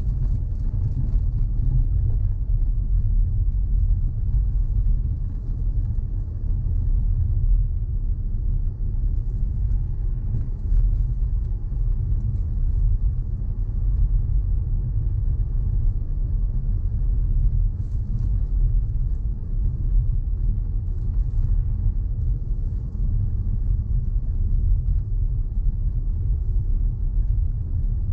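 A car driving along a road, heard as a steady low rumble of road and engine noise.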